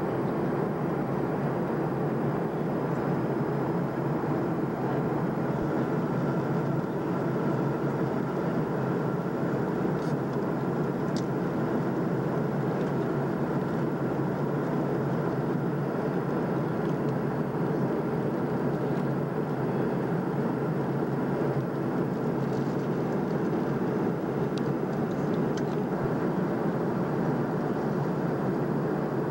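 Airliner cabin noise in flight: the steady, even drone of the engines and rushing air, heard from inside the cabin.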